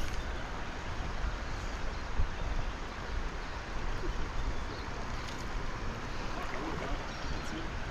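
Shallow river water running steadily over rocks in a riffle, with a low, uneven rumble of wind on the microphone.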